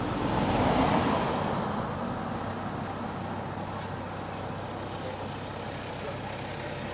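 A motor vehicle passes about a second in, its noise swelling and fading, over a steady low traffic hum.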